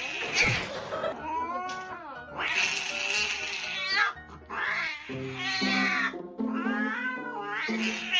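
A cat yowling in a series of long, wavering calls, one after another. Background music comes in about halfway through.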